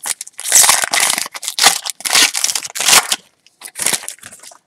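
Wrapper of a trading card pack being torn open and crinkled by hand: a dense run of crackling for about three seconds, then one more short crinkle about four seconds in.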